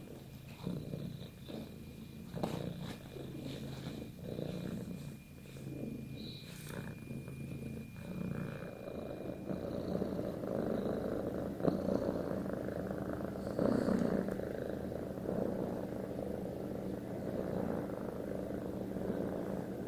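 Domestic cat purring close up, a low pulsing purr that rises and falls with each breath, growing louder and fuller from about eight seconds in.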